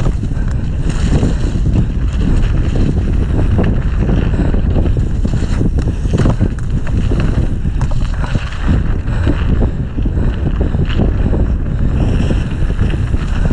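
Wind buffeting an action camera's microphone during a fast mountain-bike descent, mixed with a dense run of rattles and knocks from the bike riding over rough, snowy ground.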